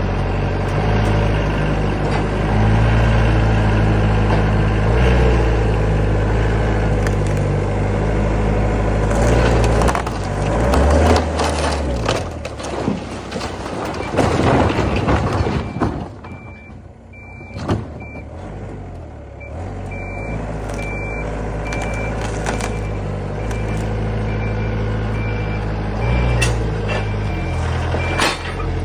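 Heavy equipment engine running under load, with loud crunching and crashing of house debris in the middle, then a reversing alarm beeping repeatedly through the second half.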